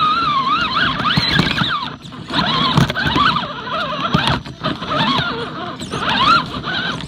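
Axial Wraith RC rock crawler's electric motor and gear drive whining, the pitch rising and falling with the throttle and dropping out briefly a couple of times, with sharp clicks and knocks as the truck climbs over rocks.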